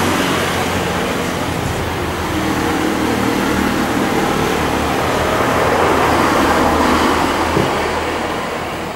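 Road traffic: a motor vehicle's engine running, with a noisy rush that swells to its loudest about six to seven seconds in, then eases off.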